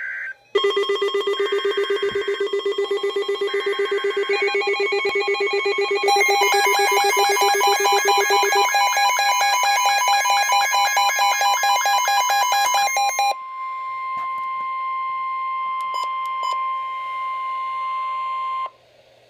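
Emergency Alert System alert tones announcing a flash flood warning. For about thirteen seconds a loud, rapidly pulsing alarm of several layered tones plays, with more tones joining as it goes. Then a steady tone holds for about five seconds and cuts off suddenly.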